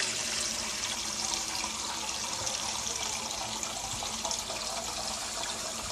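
Kitchen tap running a steady stream of water into a stainless steel saucepan in the sink, filling the pot.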